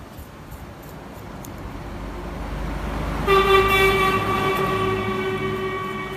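A vehicle horn sounds one long, steady note lasting about three seconds, starting about three seconds in. Before it, a low rumble builds up.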